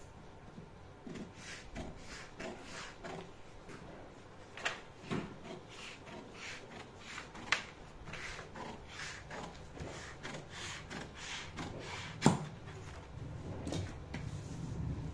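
Tailor's scissors cutting through coat fabric: a run of irregular short snips and fabric rustle, with a few sharper knocks of the shears against the cutting table, the loudest about twelve seconds in.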